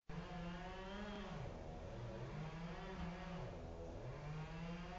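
Distant chainsaw running at high revs, its engine note sagging and climbing back twice.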